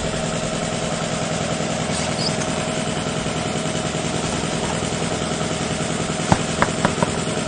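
A motor running steadily at a constant pitch, with a few light clicks or knocks near the end.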